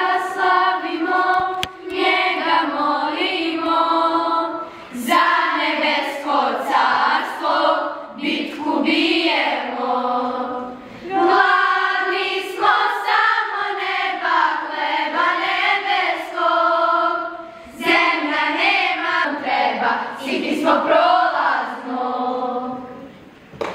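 Children's choir of girls singing a song in phrases, with short breaks between them; the last phrase fades out near the end.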